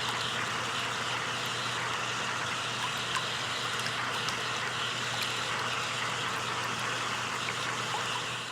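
Hot tub jets running: a steady rush of churning, bubbling water with small bubble pops and a low steady hum underneath, fading out at the very end.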